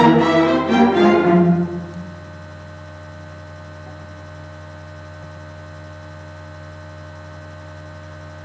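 Rehearsing string orchestra, cellos and violins, bowing a passage that breaks off about a second and a half in. Then only a steady low hum remains.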